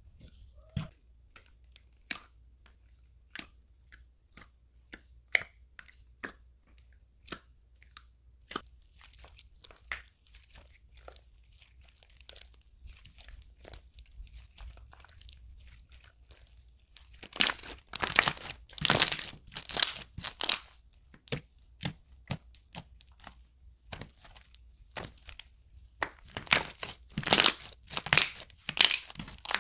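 Clear slime with jelly cubes being poked, pressed and kneaded by hand. It gives sharp separate pops and clicks at first, then two spells of louder, dense crackling as it is squeezed.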